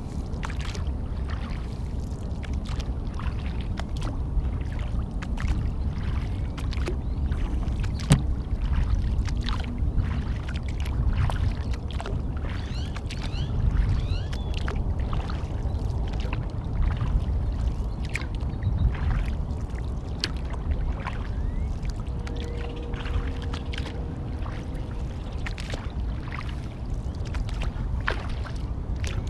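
Kayak paddle strokes: water splashing and dripping off the blades, with a steady low rumble underneath.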